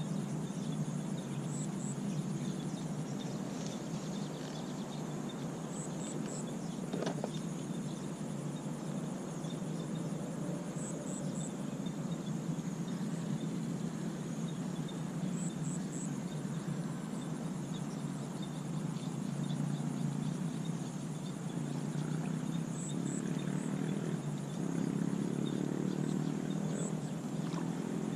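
Outdoor ambience: a steady low rumbling noise, with quick high chirps in groups of two or three every four to five seconds.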